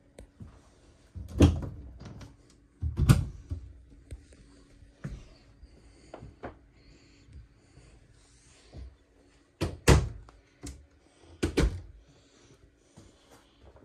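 Sharp thuds and knocks inside a camper trailer, four of them loud and several lighter, over a faint steady hum.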